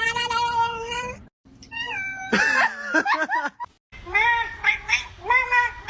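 Cats meowing in a run of short clips: one long held meow, a sudden cut, a meow that steps up and down in pitch, then a string of about four short meows that rise and fall.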